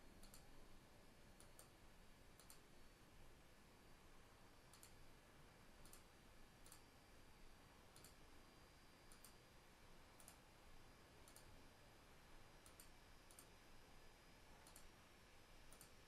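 Near silence with faint computer mouse clicks, irregular and about one a second, some close together in pairs.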